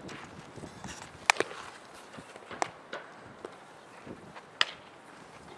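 Sharp knocks from a softball fielding drill: a softball hit off a bat and slapping into leather gloves. The loudest crack comes about a second in, with further pops about a second or more apart.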